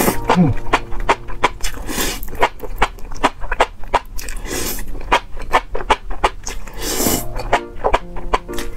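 Close-miked slurping and chewing of spicy enoki mushrooms, a quick run of wet smacks and sucking sounds.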